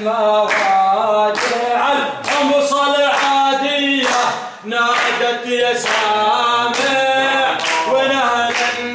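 A group of men singing an Arabic nasheed together without instruments, with rhythmic hand clapping.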